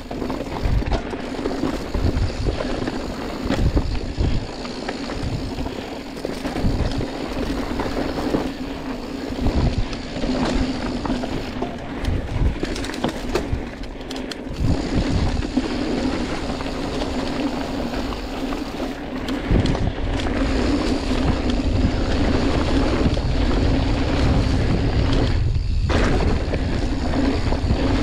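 A motor running with a steady hum, under wind buffeting the microphone that grows heavier about two-thirds of the way through.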